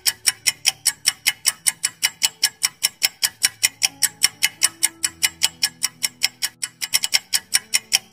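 Countdown-timer sound effect: rapid, even clock-like ticking, several ticks a second, over faint background music.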